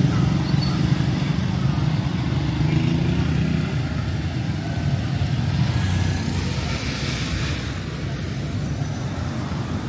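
Street traffic: a motor vehicle engine running close by, rising in pitch about three seconds in, with a passing hiss around six to seven seconds in.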